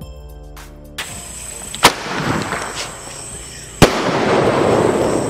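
Cock Brand 'Penta Sky Flash' sky-shot firework going off: two sharp bangs about two seconds apart, each followed by a fizzing crackle as the burst's sparks burn out.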